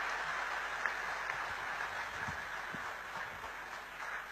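Large audience applauding, a dense steady clapping that slowly dies down.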